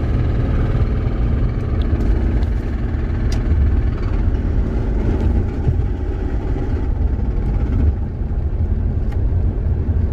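Infiniti G35 coupe driving, its 3.5-litre V6 running with a steady low rumble; the engine has a bad rod knock.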